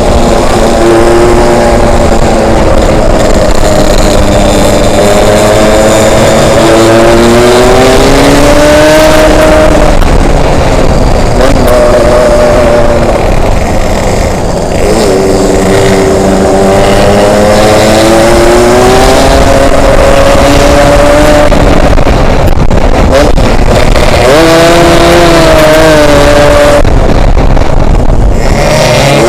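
Yamaha RX-King's 135 cc single-cylinder two-stroke engine heard while riding. It runs loud with a rising note under acceleration that falls back at each gear change, over steady wind rush on the microphone.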